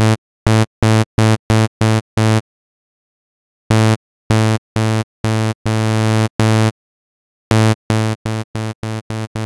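Zebra2 software synthesizer, initialized patch, playing the same low A2 note over and over in short notes about three a second, run through its compressor in smooth mode. The notes come in three runs with short pauses between them. In the last run the notes get quieter step by step as the compressor's output level is turned down.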